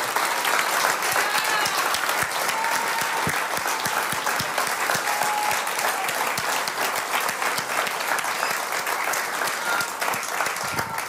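A standing congregation applauding steadily, a dense patter of many hands clapping, with a few voices heard over it. The applause begins to die down at the very end.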